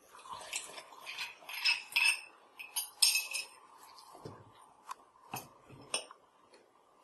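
A small glass tumbler clinking and scraping as soil is knocked and scraped out of it into a plastic-bottle water filter, a quick run of sharp clinks, with a couple of dull thumps in the second half over a faint steady hum.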